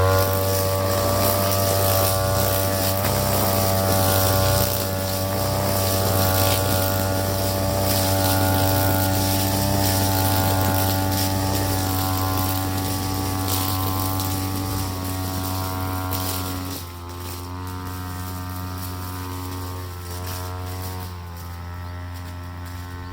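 TB43 two-stroke brushcutter engine running steadily. About seventeen seconds in it becomes quieter and keeps running at the lower level.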